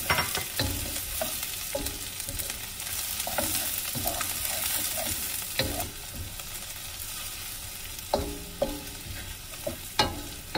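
Sliced red onions and green chilies sizzling in hot oil in a wok while a wooden spatula stirs them, with the spatula knocking against the pan a few times, loudest near the end.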